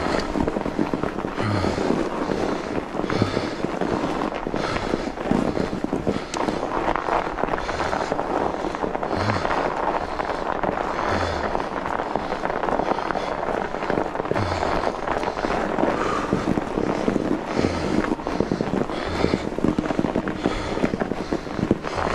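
Fat bike tyres crunching and crackling over a packed-snow trail while the bike is pedalled along, with a rhythmic swell about every two seconds.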